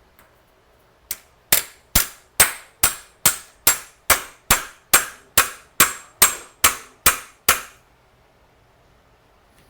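Hammer pounding a star nut setter, driving a star nut down into a bicycle fork's steerer tube: about sixteen sharp metallic hits, roughly two a second, each with a short ring, stopping about three-quarters of the way through.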